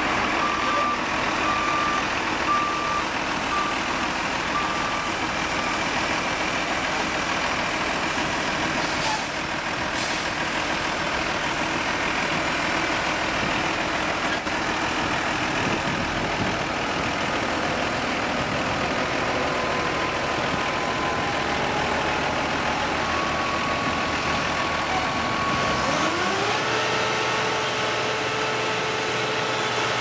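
Diesel engines of an Ingersoll-Rand PF-3200 asphalt paver and a dump truck running steadily while the truck tips asphalt into the paver's hopper, with a backup alarm beeping on and off in the first few seconds. Near the end an engine revs up and holds at a higher pitch.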